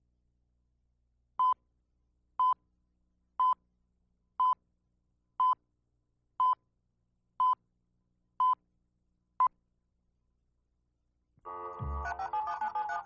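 Video countdown leader beeps: nine short, identical mid-pitched tone beeps, one a second, the last one shorter. About two seconds after the last beep, the programme's opening theme music starts, with heavy low beats.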